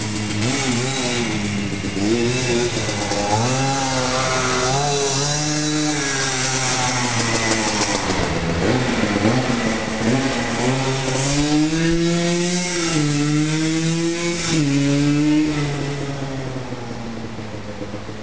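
1999 Yamaha Blaster ATV's single-cylinder two-stroke engine with an FMF exhaust, running and being revved up and down repeatedly, then dropping back and getting quieter near the end.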